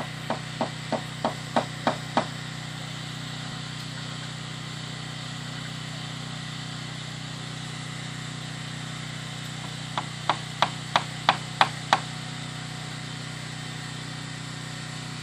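Hammer driving nails into wooden bracing boards on a stone chimney: two runs of about seven quick blows, about three a second, each run getting louder to its last blow, one at the start and one about ten seconds in. A steady low hum sits under it.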